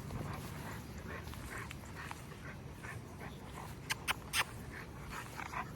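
A dog panting hard in the heat, quick even breaths. Three short sharp clicks come about four seconds in.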